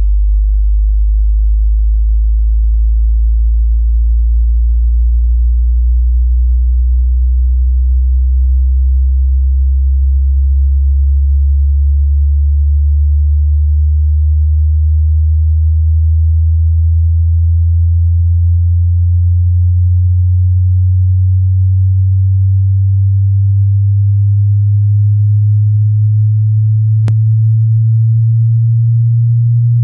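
A hearing-test sine tone, very low and pure, sweeping slowly and steadily upward in pitch at a constant loudness. It is a frequency sweep meant to find the limits of the listener's hearing. A brief click sounds near the end.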